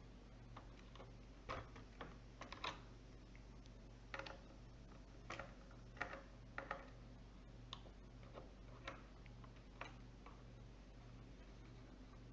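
Faint, irregular small clicks and taps from a screwdriver and screws being worked on a laptop's plastic underside, some in quick pairs, over a low steady hum.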